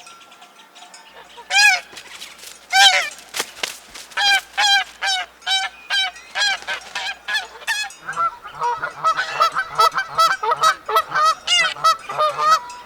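Geese honking: a long run of short, repeated honks that turns quicker and denser from about eight seconds in.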